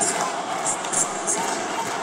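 Large football stadium crowd chanting and singing together, a dense, continuous mass of voices.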